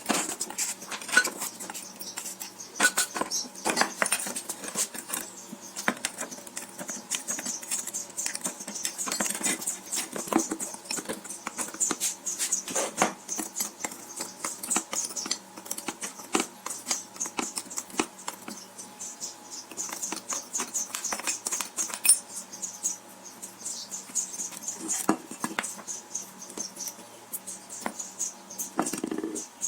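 Hand work on metal parts: many irregular light clicks, taps and scrapes with a steady high hiss.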